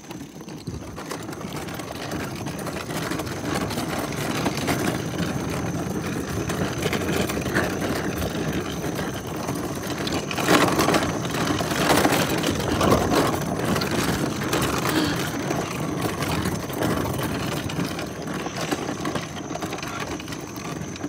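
Rumble of a small ride-on cart's rubber wheels rolling fast over rough asphalt. It builds over the first few seconds and is loudest about halfway through. A faint steady high whine runs underneath.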